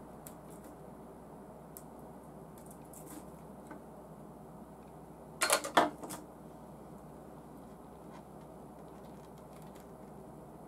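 Plastic model-kit parts on their sprue frame clattering as it is handled, a quick run of several sharp clacks about five and a half seconds in. Otherwise only a few faint small clicks over a steady low hum.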